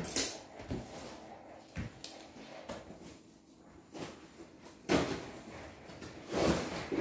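Cardboard shipping box being handled and sealed by hand: scattered knocks, rubs and scrapes on the cardboard, the loudest at the start and about five seconds in, with a longer rasping scrape near the end.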